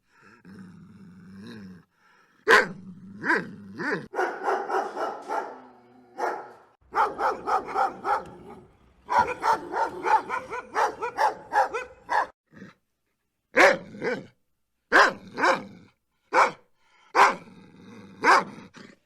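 Dog barking: sharp single barks spaced out, with a long run of quick repeated barks in the middle and a low steadier sound in the first two seconds.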